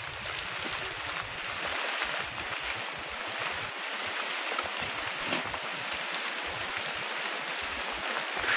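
A rain downpour setting in: a steady hiss that grows louder over the first two seconds, with scattered sharp drop taps.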